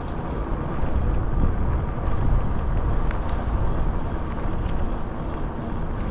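Car driving, a steady low rumble of engine and road noise that grows a little louder about a second in.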